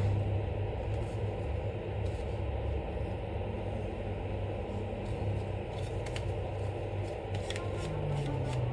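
Hollow plastic Hasbro Carnage action figure being handled and posed, with a few light clicks and scrapes of its limbs in the second half, over a steady low hum.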